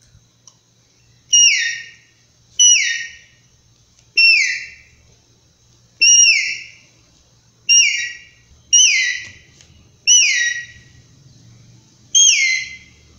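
Bottle-cap capybara call blown in eight short whistles, one every one to two seconds, each starting sharply and sliding down in pitch before fading: an imitation of the male capybara's call.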